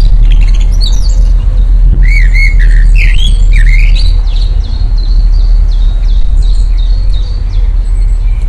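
Birds calling: gliding squawks and chirps in the first half, then a quick run of short, repeated chirps, all over a loud, steady low rumble.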